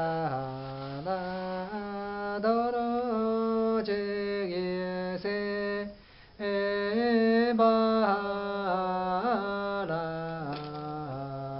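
A man chanting a traditional Tamang song unaccompanied, in long held notes that step slowly up and down, with a breath pause about six seconds in.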